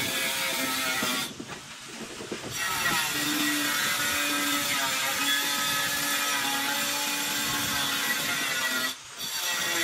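A small handheld power tool buzzing steadily on a ceramic floor tile, its pitch shifting as it works. It cuts out briefly about a second in and again near the end.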